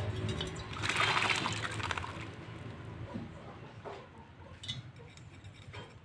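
Common hill myna bathing in a bowl of water: a burst of rapid splashing and wing-fluttering about a second in, lasting about a second, then a few faint single clicks.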